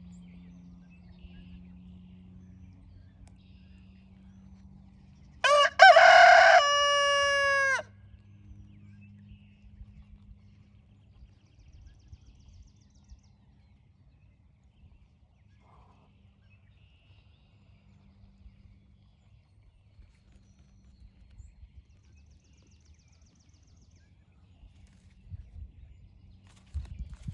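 A rooster crows once, about five and a half seconds in: a short first note, then a longer held note that lasts about two seconds all told. A faint low hum runs underneath, with a few faint low knocks near the end.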